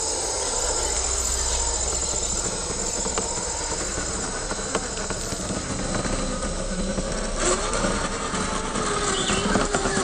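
The electric motor and geared drivetrain of a Traxxas TRX-4 1:10-scale RC crawler whining as it crawls, the pitch wavering up and down with the throttle.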